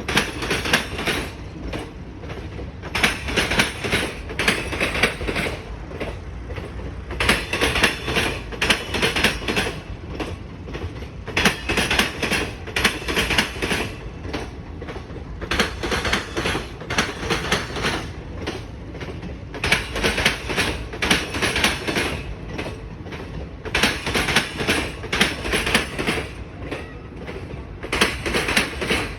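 Passenger train coaches rolling slowly over a railway diamond crossing: the wheels clatter loudly through the crossing frogs in groups about every four seconds, one group per coach, over a steady rumble of the train.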